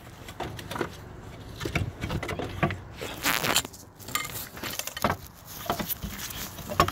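Irregular scraping, light knocks and rustling as the alternator of a 2004 Mini 1.6 is worked loose and pulled out of the engine bay by hand, metal rubbing against the surrounding parts.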